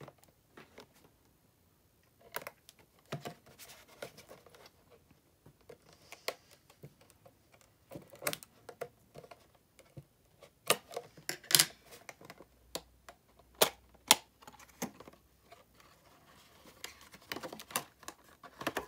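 Clear plastic packaging being handled and cut open with scissors, giving irregular sharp clicks and crinkles. They are sparse at first and grow louder and busier from about ten seconds in.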